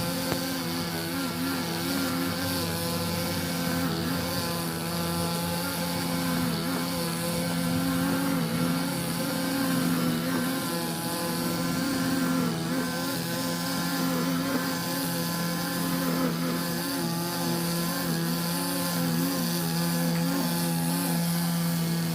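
Small petrol engine of a grass-cutting machine running steadily at working speed, its note wavering slightly under load.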